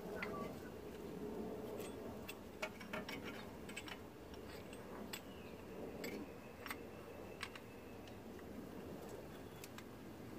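Light metallic clicks and taps, about a dozen at irregular intervals, from a tool working against a Mazda 3's front brake caliper while the caliper piston is being pushed back in to make room for new pads.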